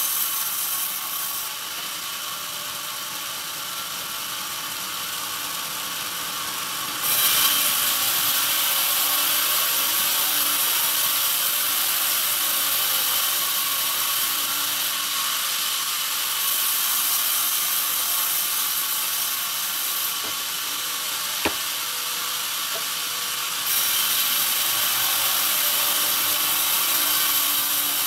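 Band sawmill blade running and cutting through a pine log, a steady hissing saw noise with a whine over it. It grows louder about seven seconds in, eases off for a few seconds later, then picks up again, with a single sharp click in between.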